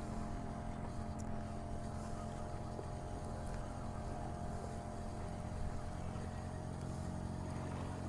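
Motorboat engine running steadily: an even, low drone that holds the same pitch throughout.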